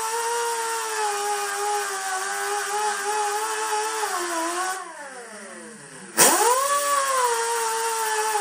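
Grinder running with a steady high whine as it strips fiberglass off the edge of a plastic grille. About five seconds in it is let off and spins down with a falling whine. About a second later it is switched back on, winds up quickly and runs steadily again.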